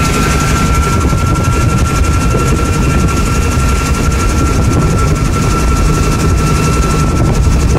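Vintage Bell 47 helicopter in cruise flight, heard from inside its cockpit: the piston engine and rotor running steadily, with a thin, steady high whine above them.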